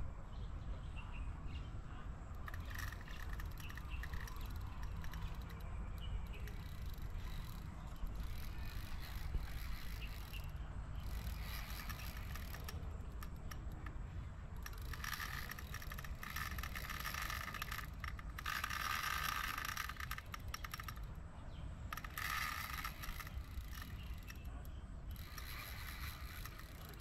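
Spinning reel being wound in bursts under the load of a hooked fish, with a whirring gear noise that comes in three or four spells of a second or two in the second half. Underneath is a steady low rumble.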